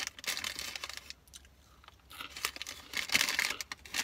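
Paper fries packet crinkling and rustling as it is handled while the last crumbs are picked out of it, in two spells: over the first second, then again from about two and a half seconds in.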